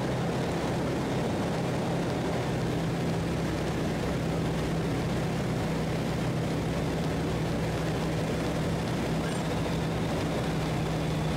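Just Aircraft SuperSTOL XL's engine and propeller running steadily in flight, heard inside the cockpit as an even low drone that holds one pitch throughout.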